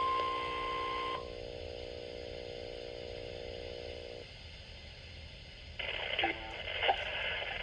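NOAA Weather Radio warning alarm tone, a steady single high beep, cutting off about a second in. A lower steady buzz of several tones carries on until about four seconds in. After a short gap, the announcer's voice starts over the radio near the end.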